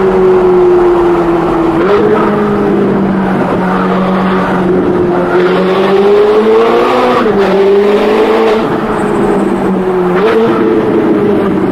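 Ferrari 458's V8 through a full Novitec exhaust, heard from the cabin with the window open, running at part throttle on a winding road. Its note slowly falls, jumps sharply back up about 2 s and 10 s in as the dual-clutch gearbox changes down, and swells and drops once around 7 s in.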